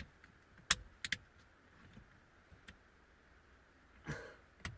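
A few sharp plastic clicks and light knocks from electrical connectors being plugged in and parts handled, with a short rustle near the end.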